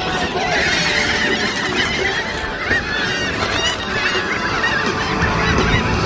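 A large flock of laughing gulls calling in a feeding frenzy, many short arched calls overlapping continuously.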